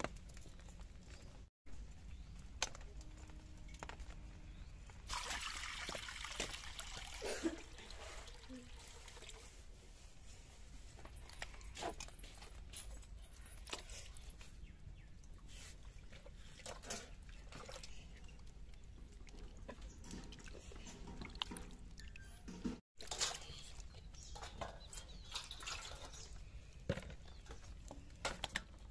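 Raw fish pieces being washed by hand in water in a metal pan: splashing, sloshing and dripping water with scattered clinks and knocks of fish pieces and metal dishes. The splashing is loudest about five to seven seconds in.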